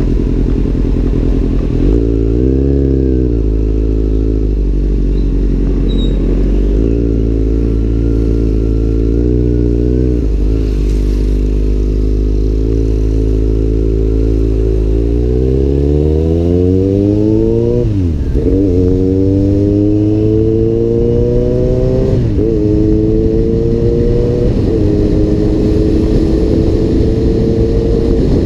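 Kawasaki Z800's inline-four engine through an Arrow aftermarket exhaust, under way. It runs steadily at first with a couple of brief throttle changes, then from about halfway accelerates hard, its pitch climbing, drops sharply at two quick upshifts a few seconds apart, and settles into a steady cruise near the end.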